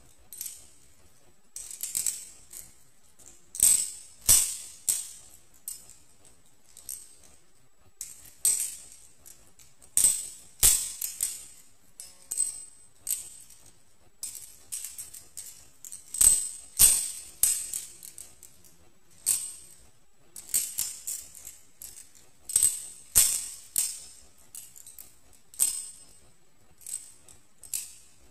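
Balisong (butterfly knife) handles clacking and rattling as the knife is flipped, twirled, thrown and caught: irregular runs of sharp metallic clicks with short pauses between them.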